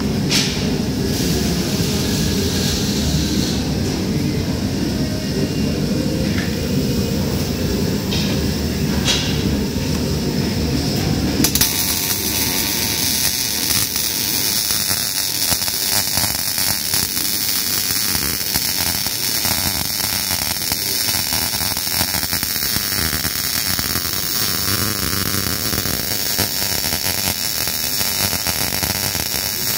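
A low steady rumble for the first eleven seconds or so, then a MIG welding arc strikes and burns continuously with a steady crackling hiss.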